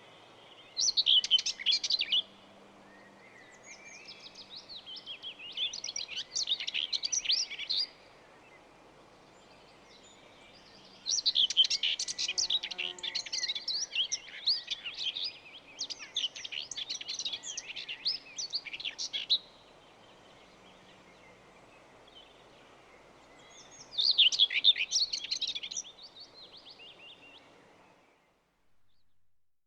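Songbirds singing in several bursts of fast, high twittering song a few seconds long, with pauses between them, over a faint steady background hiss. The sound cuts off shortly before the end.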